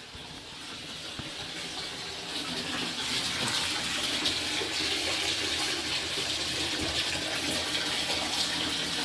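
Water running steadily, growing louder over the first three seconds and then holding even.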